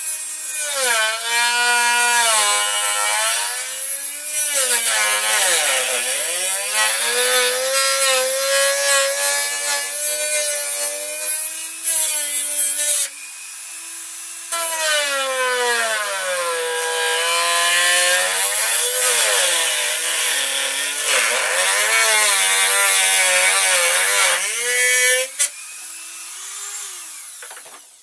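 Dremel rotary tool with a cut-off disc cutting into a plastic enclosure lid. Its motor whine dips and rises in pitch as the disc bites into the plastic and frees again. It eases off briefly about halfway through and stops near the end, winding down.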